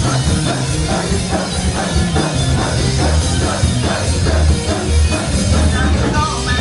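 Rock band music with a drum kit keeping a steady, driving beat under heavy bass and guitars.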